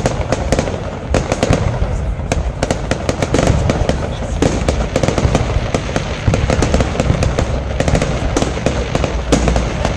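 Aerial fireworks bursting: many sharp bangs and crackles in quick, irregular succession.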